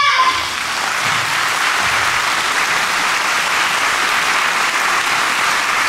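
Hall audience applauding steadily: hand-clapping only, with no cheering voices.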